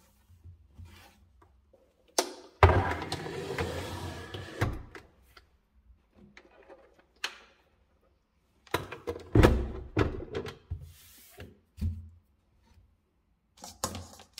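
Cleaning and handling noises: a cloth rubbing over a plastic sandwich maker on a wooden cabinet shelf for a couple of seconds, then a click and a string of knocks and thuds as appliances are moved and set down.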